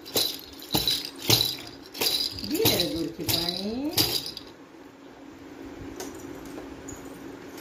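A small rattle with jingle bells shaken in quick sharp strokes, about five in the first two seconds, each with a bright ringing. A voice follows, swooping down and up in pitch.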